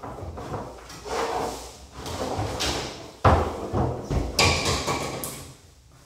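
A door being handled and shut, with a loud bang about three seconds in and another knock a second later, amid clattering as a framed board is pulled out and carried.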